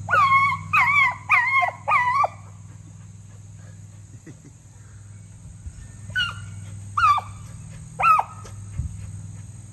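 Beagle barking in short, high yelps: four in quick succession, then after a pause three more about a second apart, each call dropping slightly in pitch.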